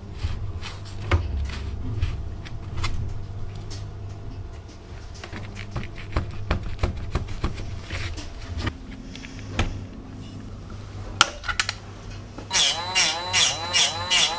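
Twisted metal wire being bent and crimped by hand and with pliers around a handle's end: scattered light clicks and scrapes. About twelve and a half seconds in, a rotary tool with a small cutoff disc starts up, its whine dipping in pitch again and again as it cuts into the wire.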